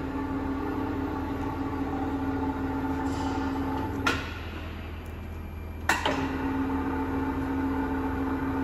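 Deckel FP 4A milling machine running with a steady whine. It stops with a click about four seconds in and starts again with a click about two seconds later.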